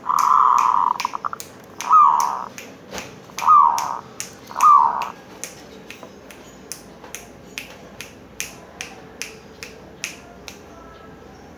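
Zebra dove (perkutut) cooing: one longer note, then three short notes that each fall in pitch, over a steady sharp clicking about twice a second.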